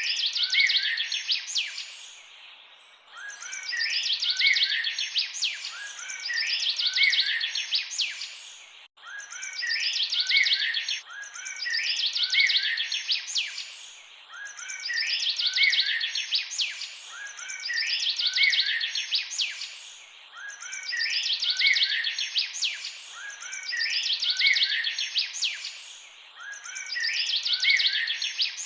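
Birdsong: a phrase of high, bright chirps and trills repeated over and over about every three seconds, each repeat the same as the last, like a looped recording. A brief break comes about nine seconds in.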